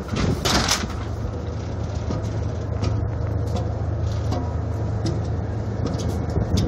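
Steady low drone of a car ferry's engines and machinery, heard on board, with a couple of sharp knocks about half a second in.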